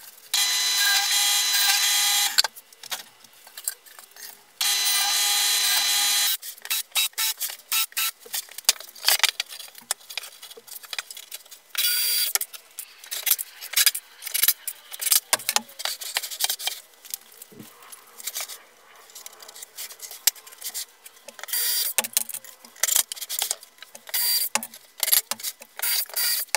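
A power tool's motor runs steadily twice near the start, each time for about two seconds. Then a cordless drill-driver drives screws into plywood in short bursts, among knocks and rattles of wooden panels and loose screws.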